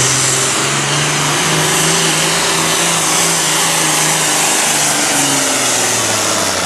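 Allis-Chalmers D21 super farm pulling tractor's diesel engine running flat out under heavy load as it drags the weight-transfer sled. The engine note sags a little near the end as the sled bears down.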